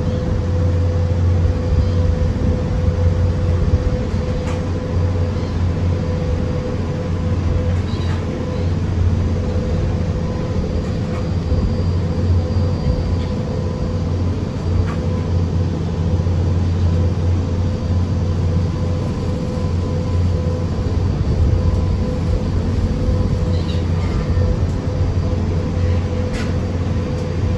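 Car ferry underway: its engines give a steady low rumble with a constant hum, over a wash of noise from the churning wake.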